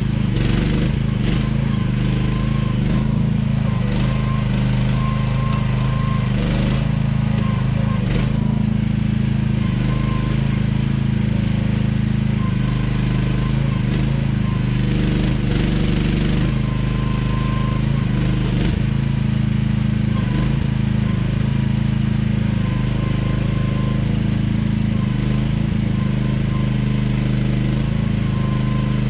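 AGT QH12R mini excavator's engine running steadily at a constant speed while the machine works, with a faint whine that comes and goes and a few short hissing stretches.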